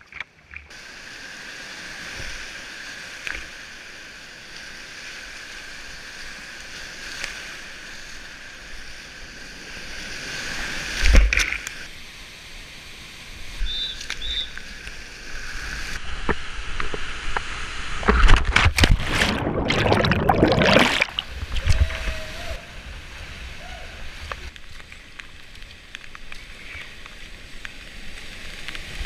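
Rushing whitewater around a kayak, heard from a camera mounted on the boat, with paddle strokes and water splashing over the microphone. A sharp loud splash comes about a third of the way in, and a longer run of heavy splashing comes past the middle, as the boat drops through foaming rapids.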